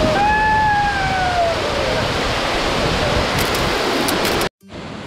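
Heavy, steady rush of a lake's outflow pouring down a stone wall, with a person's long falling whoop in the first couple of seconds. The water sound cuts off abruptly about four and a half seconds in and music starts.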